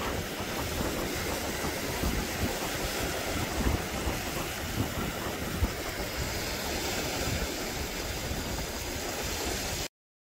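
Wind buffeting the microphone in irregular low gusts over a steady seaside rush of wind and surf, cutting off suddenly near the end.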